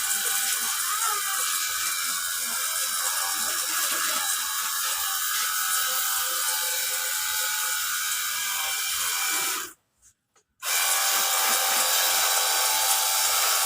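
Battery-powered pressure washer's motor running with a steady high whir, cutting out for about a second around ten seconds in and then starting again at the same level.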